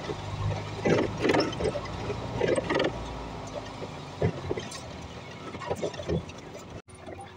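Sped-up interior noise of a Volvo hybrid city bus on the move on a wet road: a steady hiss of tyres and drive with short irregular rattles and clatters. It drops out for an instant near the end.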